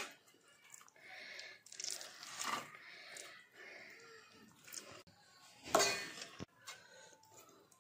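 Faint wet scraping and handling as feathers are scraped off a scalded chicken head with a curved blade, with a few small clicks and one louder rasp near the end.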